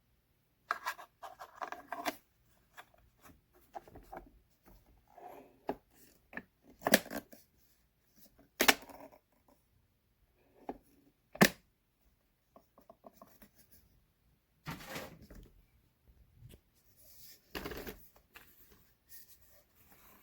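Intermittent handling sounds: several sharp clicks and knocks, with bouts of rustling and scraping between them.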